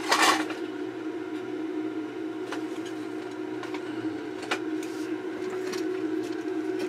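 Small electronic parts clicking and rattling in a little parts box as diodes are sorted through by hand: a louder clatter about a quarter second in, then a few light clicks, over a steady low hum.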